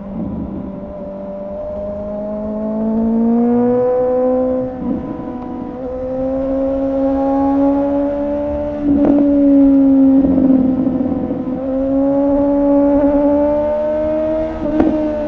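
2017 Suzuki GSX-S750's inline-four running through a Yoshimura R11 exhaust with the dB killer removed, pulling steadily while ridden. The pitch climbs slowly, dips briefly about five seconds in, then climbs again, and it gets louder from about nine seconds.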